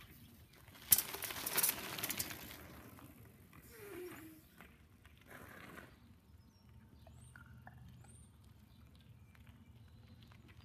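Bicycle riding past close by on gravel, its tyres crunching over the stones for about a second and a half, starting with a sharp knock.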